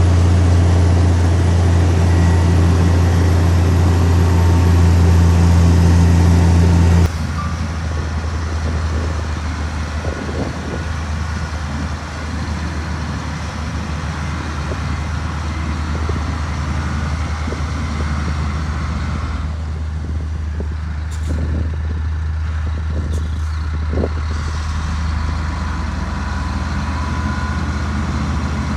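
Heavy diesel engine of earthmoving machinery running steadily with a strong low drone. About seven seconds in, the sound drops suddenly to a quieter engine rumble, which continues to the end.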